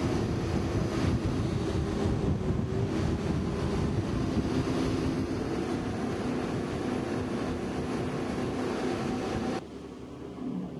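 Wind buffeting the microphone and water rushing past the hull of a racing yacht under way at sea, with a steady low hum underneath. It drops abruptly to a quieter sea-and-wind sound near the end.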